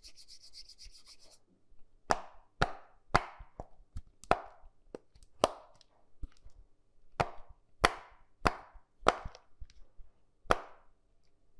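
A series of about a dozen sharp knocks, each ringing briefly, coming roughly every half second to second. Before them comes a short run of fast, high ticking.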